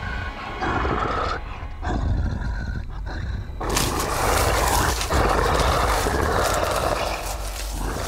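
Dramatized sound effect of a large creature, presented as Bigfoot, breathing in heavy rasping breaths: short ones about half a second and two seconds in, then a long loud one from about three and a half seconds in, over a low rumble.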